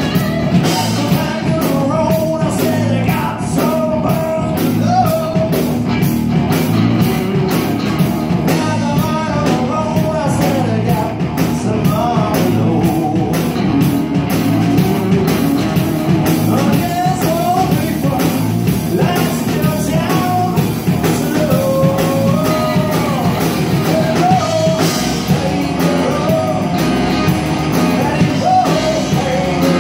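A live rock band playing: electric guitars and a drum kit keeping a steady beat, with a man singing lead.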